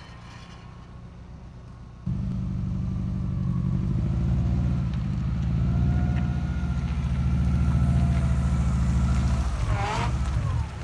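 Volkswagen Vanagon Syncro under way, its engine and drivetrain making a low, pulsing drone. The drone starts abruptly about two seconds in, grows louder, and drops away near the end, where a brief falling higher-pitched sound appears. The van's drivetrain has a rattle and grinding noise that is being diagnosed.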